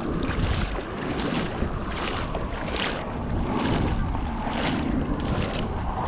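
Strong wind buffeting the microphone in uneven gusts over a steady wash of waves.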